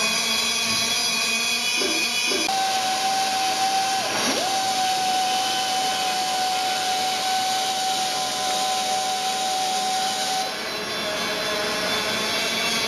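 Pneumatic die grinder running on bronze with a steady air hiss and a high whine. The whine sets in about two and a half seconds in, dips briefly once a little later, and changes near the end.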